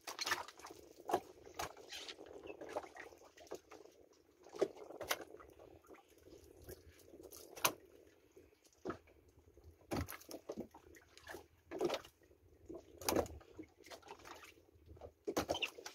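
Irregular knocks, scrapes and splashes as fish are handled and rinsed with water in the bottom of a small fibreglass boat.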